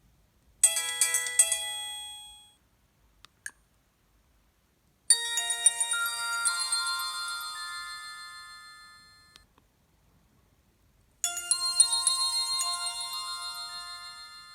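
Alcatel OT-660 flip phone playing its preloaded ringtones through its loudspeaker. A short chiming phrase comes about a second in, then a longer melody of several notes at once that fades out and starts again after a gap of about two seconds. A brief click falls between the first two.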